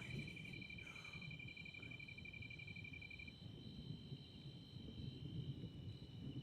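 Crickets trilling steadily, several at once at different high pitches; the lowest, pulsing trill stops about three seconds in. A low rumble of noise runs underneath.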